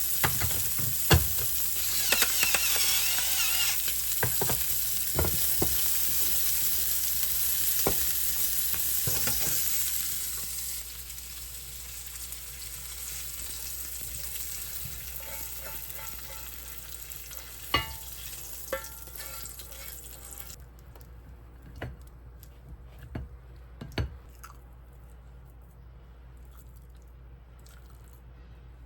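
Food sizzling in a frying pan while it is stirred, with sharp taps of a utensil against the pan. The sizzle is loud for about the first ten seconds, then dies down and fades out about two-thirds of the way through, leaving only occasional knocks.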